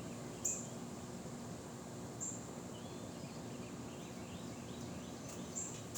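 Steady outdoor background noise with a constant thin high tone, broken by three short high chirps and a few faint bird-like calls.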